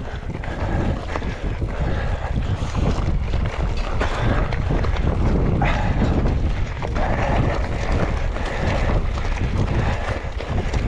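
Mountain bike riding down a rough trail: wind rumbling on the camera microphone, with tyre noise and scattered knocks from the bike over rough ground.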